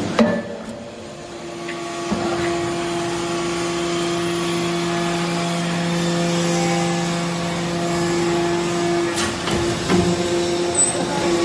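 Hydraulic briquetting press running: a steady hum from its hydraulic pump while the ram presses chips into the mould. The lower part of the hum drops out about nine seconds in, and a few sharp metallic knocks follow.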